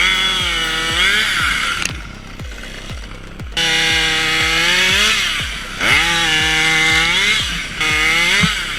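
Chainsaw engine running at high revs. Its pitch sags and climbs back again several times, with a quieter, lower-revving stretch about two seconds in.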